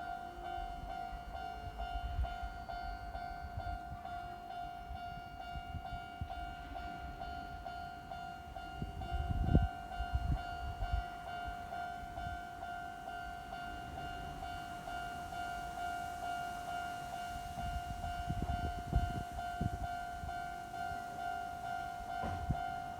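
A Japanese level crossing warning bell rings steadily while a Sanyo Electric Railway train passes. The train's wheels rumble underneath with irregular low thumps, the loudest about nine and a half seconds in and more near the end.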